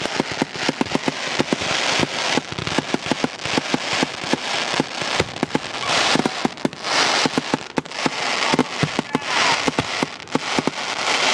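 Fireworks display finale: aerial shells and ground-launched fountains going off together. Many sharp bangs come several a second over a continuous hissing rush.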